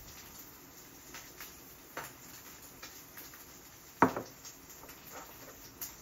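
French bulldog begging with a few short nasal whimpers and snorts, the loudest and sharpest about four seconds in.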